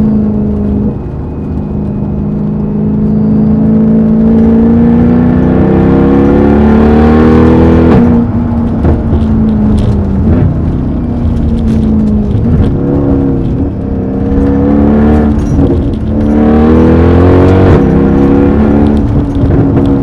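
Mercedes E63 AMG V8 with a loud exhaust under acceleration: the engine note climbs steadily for several seconds and drops sharply about eight seconds in. It then sags and climbs twice more.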